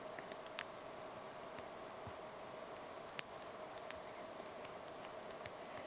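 Light, sharp clicks and taps at irregular spacing, about a dozen, as a fingertip taps the new glass digitizer of an iPhone 3G and its home button is pressed to test them after a screen replacement. A faint steady hum sits underneath.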